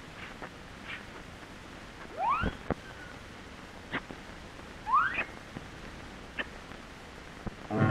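Cartoon sound effects: two rising whistle-like glides, about two and five seconds in, and a few soft clicks over steady soundtrack hiss.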